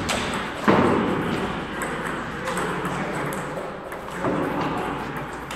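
Table tennis rally: the ball clicking sharply off paddles and the table in a string of quick hits, the loudest about a second in.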